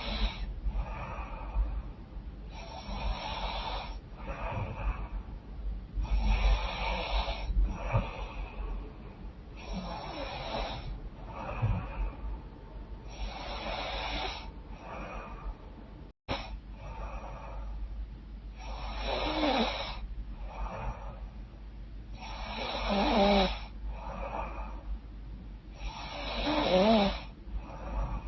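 A woman snoring in her sleep through a blocked, runny nose, with a breath rising and falling about every three to four seconds. The last few snores are louder, with a wavering, rattling pitch.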